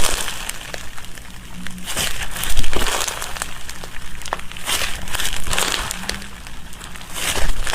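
Slime being squeezed and pressed by hand, making irregular crinkling, crackling sounds with small clicks; the loudest squeeze comes about two and a half seconds in.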